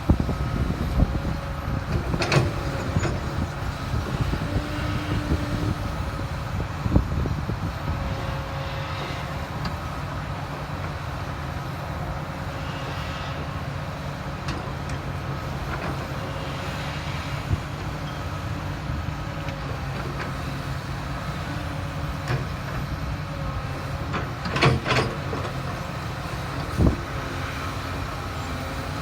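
Heavy diesel engines of site machinery running steadily, with a few sharp knocks and clanks, one about two seconds in and a couple near the end.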